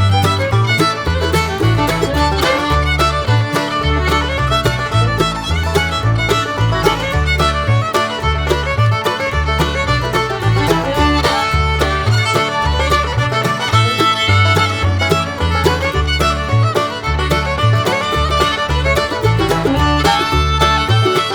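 Upbeat background music led by fiddle, with a steady bass beat.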